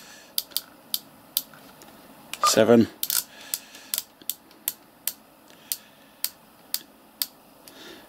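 Anytone AT-588 mobile radio's channel dial and front-panel keys clicking as a memory name is entered character by character: a string of sharp, separate clicks, about two a second. One short sound falling in pitch comes about two and a half seconds in and is the loudest thing.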